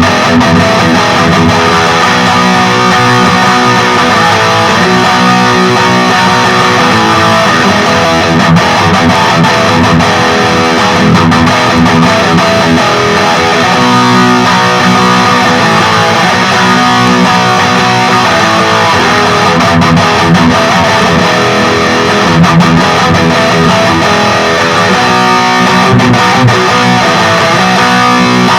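Electric guitar with active pickups played through a Peavey Vypyr 15-watt modelling amp on its XXX high-gain amp model: continuous strummed chords and riffs.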